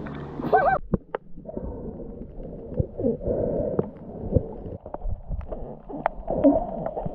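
A camera going from the sea surface to underwater: splashy surface water noise cuts to a muffled underwater sound about a second in. Under water there are scattered sharp clicks and a few short wavering tones.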